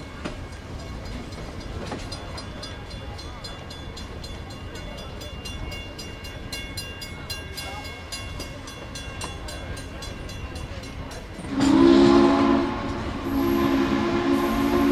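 Train rolling along at speed with a steady rail and wind rush, then, about two-thirds of the way in, Southern Pacific 4449's steam whistle blows loudly as a chord of several tones: a first blast, a short dip, then a second blast that runs on.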